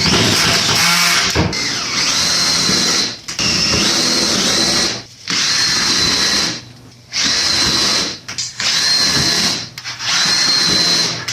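Power drill run in short bursts of one to two seconds, about six times over, its motor whining steadily each time, as screws are driven into or backed out of pallet wood.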